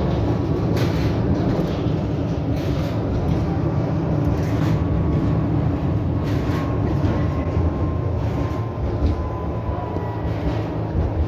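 V3A-93M articulated tram running along its track, heard from on board: a steady rumble of wheels on rails with irregular knocks and clacks from the track, and a faint electric whine that drifts slowly in pitch.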